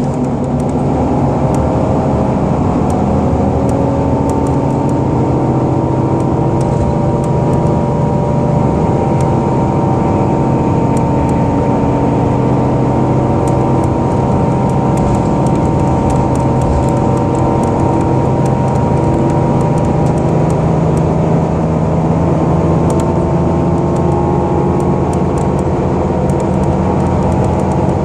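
2010 Gillig BRT 30-foot transit bus heard from inside, cruising at highway speed: a steady engine and drivetrain drone with a few whining tones that drift slowly in pitch, and light clicks and rattles throughout.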